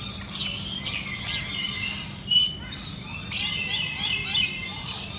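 Many birds chirping and calling at once, short high calls overlapping throughout, with one louder call about halfway through.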